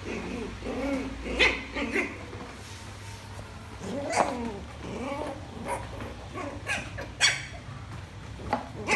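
Lhasa apso puppy barking in several short bursts, with a few sharp knocks in between.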